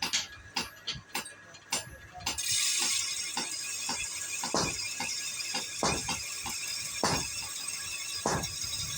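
Hammer striking a sickle blade on an anvil, each blow ringing metallically: a quick run of blows about twice a second, then from about two seconds in, slower blows about one every second and a quarter over a steady hiss.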